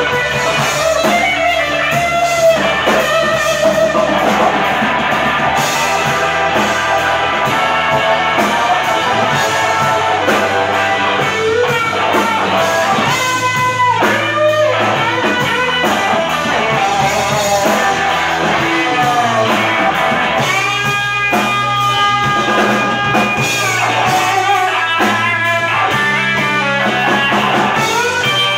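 Live blues band playing an instrumental passage: an electric guitar leads with sustained, bent notes over a drum kit and band backing.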